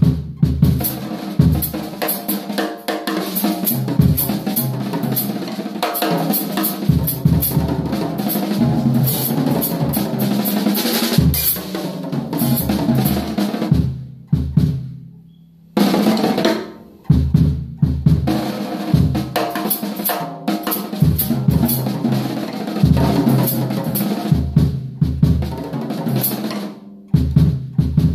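Acoustic drum kit played solo: fast strokes across snare, toms and bass drum, with Paiste cymbals crashing. About halfway through the playing breaks off for a second or two and the sound dies away, then the drumming starts again.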